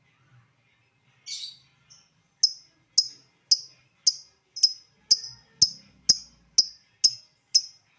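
Lovebird giving one harsh call, then from about two seconds in a steady run of short, sharp ticking chirps, about two a second. This is the 'ngetik' (typing) call that keepers play to provoke other lovebirds into calling.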